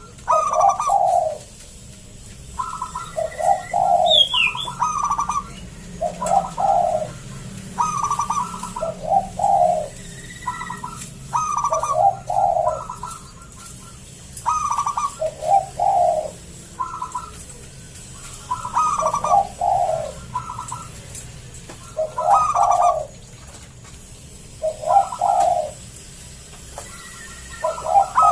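Zebra dove (perkutut) cooing over and over, about one phrase every two seconds, each a higher note dropping into a lower, rolling coo in a deep, full voice. Faint chirps of other small birds come in now and then.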